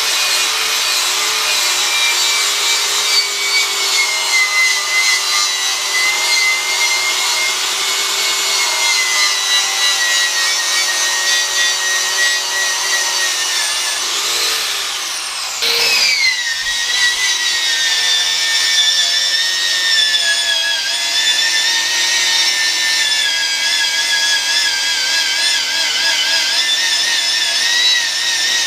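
Angle grinder grinding paint off a steel excavator bucket to bare metal for welding. It runs with a steady high whine whose pitch sags and wavers as the disc bears on the metal, with a brief break about halfway before it picks up again.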